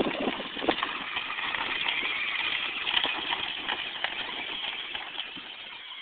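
Small engine of a child's youth ATV running as the quad drives off across dirt and grass, with a steady buzzing noise that fades over the last couple of seconds as it moves away.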